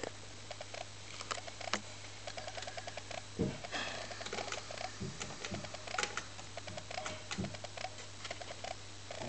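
CD jukebox making a rapid chattering squeak in runs of about a dozen pulses a second, over a steady electrical hum, with a few sharp clicks as selection buttons are pressed on its keypad.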